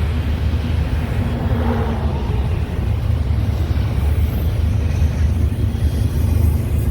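Intermodal freight train passing with a steady low rumble.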